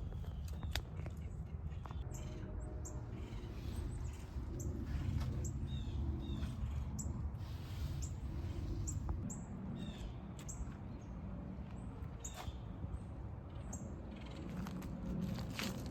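Small birds chirping: many short, separate chirps scattered through, over a steady low rumble.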